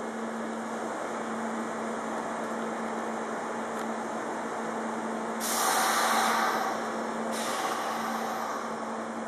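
Steady hum from a stopped electric train's equipment, with two sudden bursts of compressed air hissing out a little past halfway through, the first louder than the second.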